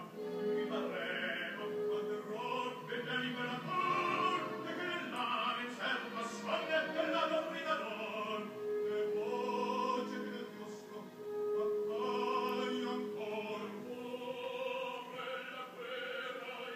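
Opera music playing, a singer holding long sustained notes.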